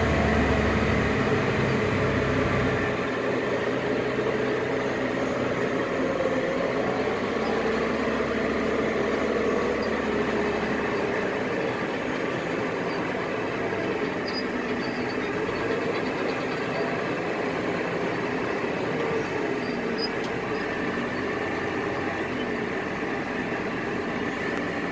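Off-road dump truck's diesel engine running steadily under load while the truck climbs a dirt pile, heard from inside the cab. The deep rumble is heaviest for the first few seconds, then eases a little.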